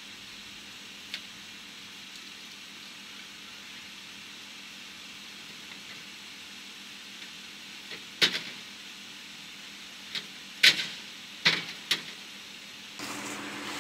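Sharp knocks and clatter from fireworks gear being handled during teardown: a small click just over a second in, then four or five loud knocks between about eight and twelve seconds in. They sit over a steady high hiss, and a steady low hum starts near the end.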